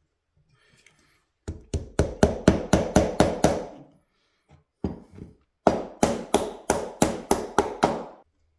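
Hammer taps on wood, driving small glued walnut and maple pieces down into a jig. They come in two quick runs of about nine strikes each, at about four a second, with a few lighter taps between them.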